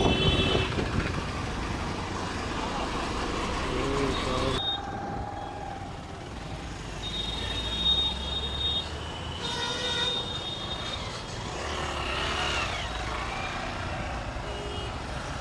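Road traffic in a slow jam of lorries and a tractor: engines running with a steady low rumble, and several vehicle horns tooting, the clearest a little past the middle.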